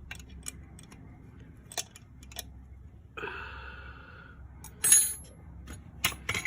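Hand tools working on a motorcycle's rear chain adjuster: a spanner loosening the 12 mm adjuster nut, with scattered metal clicks and clinks, the loudest about five seconds in. A breathy, hiss-like sound lasting about a second comes about three seconds in.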